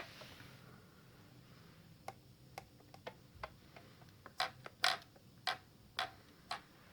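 A series of light, irregular plastic clicks, about one or two a second, from the 9125 RC car and its transmitter being handled. The car does not respond because its steering servo is plugged in.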